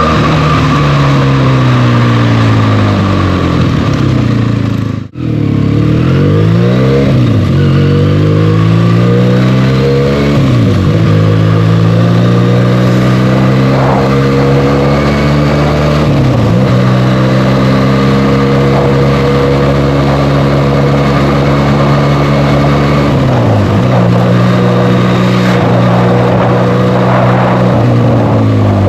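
Benelli TNT 300's parallel-twin engine and stock exhaust under way: the pitch falls as it slows, cuts out for an instant about five seconds in, then climbs again. It then holds a steady note, dipping briefly a few times.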